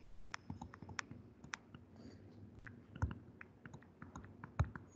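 Faint, irregular clicks of a stylus pen tapping on a tablet screen while handwriting, with a louder knock about three seconds in and another near the end.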